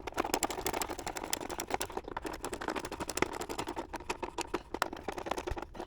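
Hand ratchet wrench clicking in quick, uneven runs as clamp bolts are tightened down.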